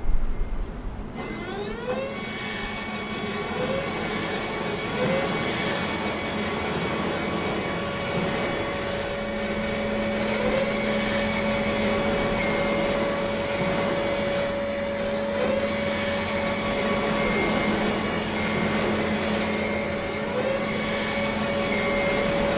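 Boom lifts' electric hydraulic drives running: a steady machine whine and hum that starts about a second in, with a rising whine repeating roughly every second and a half.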